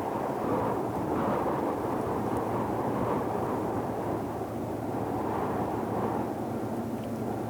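Deep ocean ambience as a low, muffled rush of noise with slow, gentle swells every couple of seconds and no distinct waves or splashes.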